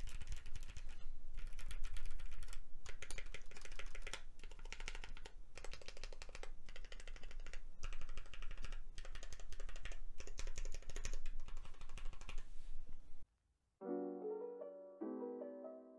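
Fast typing on a mechanical keyboard fitted with Mint switches (68 g springs, teal polycarbonate housings). The typing stops abruptly about 13 seconds in, and after a brief silence soft piano music begins.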